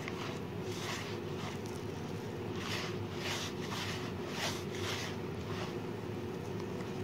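Hands mixing and kneading crumbly flour and milk into dough in a metal bowl: a run of soft rustling, squishing strokes, a little more than one a second, over a steady low hum.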